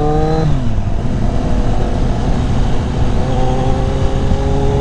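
Inline-four naked-bike engine with heavy wind noise on the helmet microphone. The revs fall away about half a second in, the engine runs low and steady under the wind, and its note comes back a little stronger a bit after three seconds.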